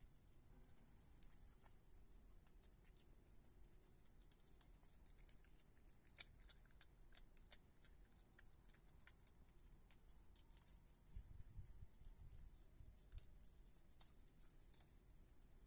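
Faint wet clicks and smacks of a Virginia opossum chewing soft cat food and sour cream off a paper plate, coming in irregular runs. There is a brief low rumble about two-thirds of the way through.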